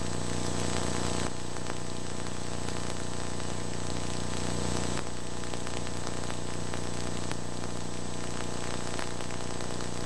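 Steady hiss with a low electrical hum and a thin high whine: the noisy soundtrack of an old VHS tape recording.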